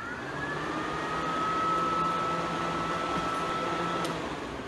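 Twin electric radiator cooling fans wired in series for low speed, running at half power. Their motor whine rises over the first second as they spin up, then holds steady over the rush of air. Near the end a switch clicks and the fans begin to wind down.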